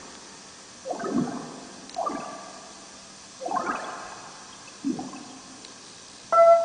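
Water bubbling and gurgling in four short bursts, each a second or so apart. Near the end music starts up.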